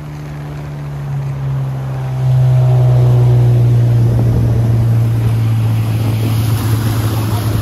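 Motorboat's outboard motor running steadily; about two seconds in its pitch drops slightly while it gets louder, with a rushing noise building over it.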